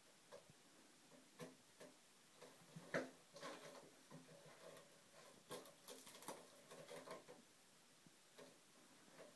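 A cat's claws scratching and batting at a scratching post: scattered short scrapes and taps, the loudest about three seconds in and a denser run of them a couple of seconds later.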